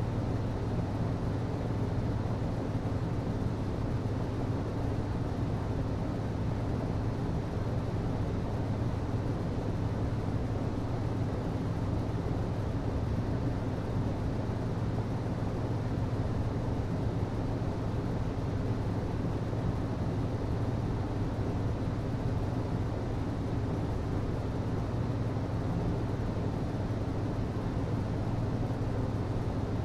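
HVAC system running: a steady rush of air over a constant low hum, unchanging throughout.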